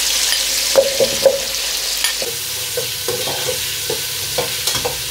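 Tomato and red onion sautéing in hot oil in an aluminium pot: a steady sizzle. A metal spoon clinks and scrapes against the pot as the onion goes in and is stirred.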